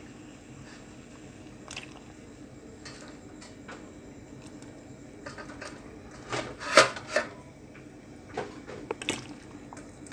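Saucepan of roselle-leaf and fish broth boiling, bubbling steadily with scattered small pops. A short cluster of louder noises comes about two-thirds of the way through.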